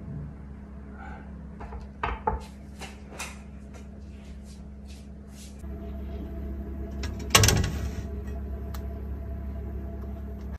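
Kitchen handling sounds over a low steady hum: a run of light clicks and knocks, then about seven seconds in a loud knock as a nonstick frying pan is set down on a plastic cutting board in a refrigerator.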